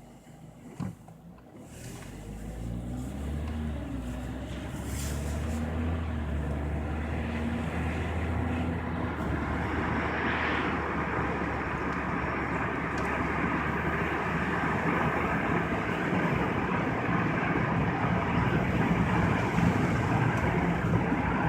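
Car heard from inside the cabin pulling away and gathering speed: engine hum and tyre noise build over the first few seconds, then settle into steady road noise. A short click about a second in.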